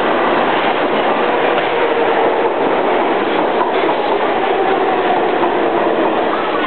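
Subway train running on the rails: a steady, even rumble of wheels and car noise.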